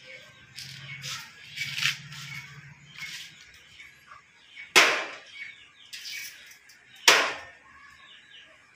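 Tubular steel window sashes being handled against their steel frames: light scraping and rattling, then two sharp metal clanks about two seconds apart.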